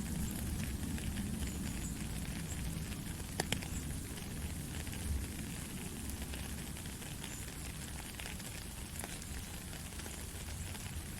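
Rain falling steadily: an even hiss with scattered ticks of drops and a low rumble underneath, with a sharper drip about three and a half seconds in.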